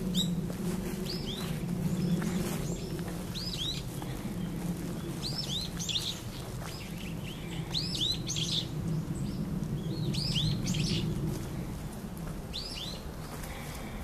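Small woodland songbirds calling: short arched chirps in quick runs of two to four, repeated every second or two, over a steady low rumble.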